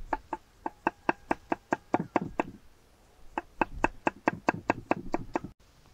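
Kitchen knife chopping red pepper on a wooden board: two runs of quick, even knocks, about five a second, with a pause of about a second in the middle.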